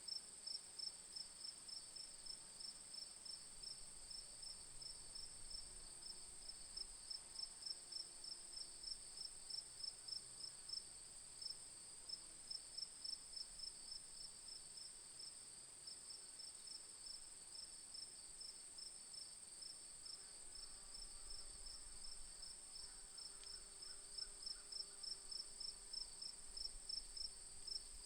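Crickets chirping: regular chirps about three a second over a steady, continuous high trill. The chirps fade somewhat in the middle and come back stronger near the end.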